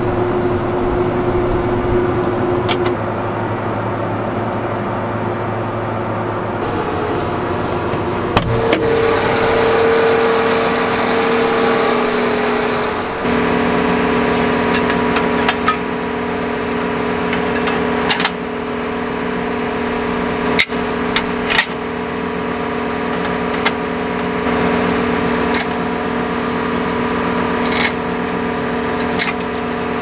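A John Deere tractor's diesel engine running steadily, its note changing twice. In the second half come a few sharp metallic clinks as a wagon tongue and its safety chains are hitched to the tractor's drawbar.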